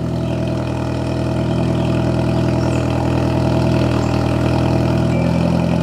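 A car engine idling steadily through a newly fitted ISR Performance Series II EP single-tip blast pipe exhaust, pretty loud. The owner hopes the loudness is just a cold-start thing. There is no sign of an exhaust leak.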